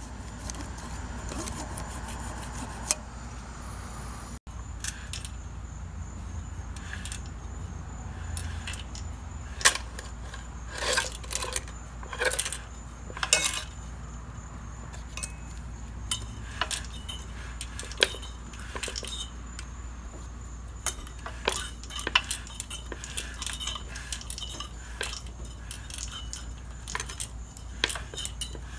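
Small metal tools and parts being handled, with a scattering of sharp clicks and clinks, busier from about a third of the way in, over a steady low hum.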